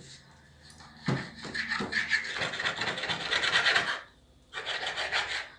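A knife sawing back and forth through a fish fillet on a cutting board: a rasping scrape in two spells, with a short break about four seconds in.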